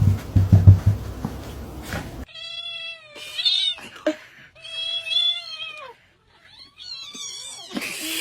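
A cat meowing in three long, drawn-out calls. These are preceded by about two seconds of noise with a few low thumps.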